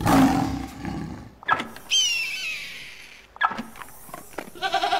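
A run of different animal calls, broken by sharp knocks: a loud, low, rough call at the start, a high call falling in pitch about two seconds in, and a goat bleating, falling in pitch, near the end.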